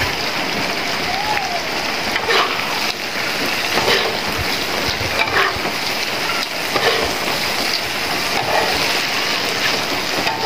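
Steady hiss of heavy rain, with a spatula scraping and knocking in a granite-coated wok every second or two as fried fish and eggplant are stirred into chilli sambal.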